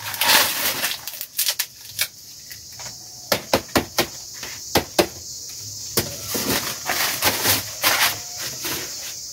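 Dry corn husks crackling and tearing as ears of field corn are husked by hand, with scattered sharp snaps and rustles.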